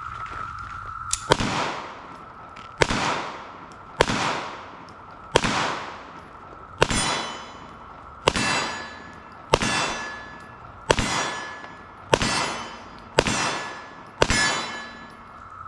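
A .45 ACP Garrison 1911 pistol firing about eleven shots at a steady, unhurried pace, roughly one a second. Each shot is a sharp crack that dies away over about a second.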